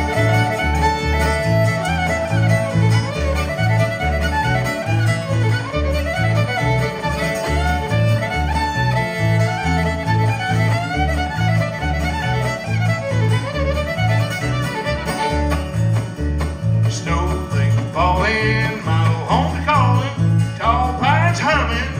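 Live bluegrass band: fiddle playing the lead over strummed acoustic guitar and an electric upright bass thumping out two alternating notes on a steady beat.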